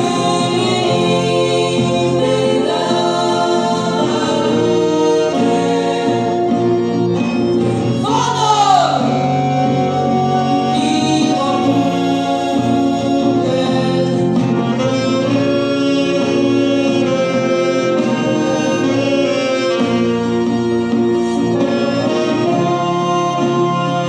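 A folk band playing a song live: a group of voices singing together over accordion and other instruments. A short sliding note rises and falls about eight seconds in.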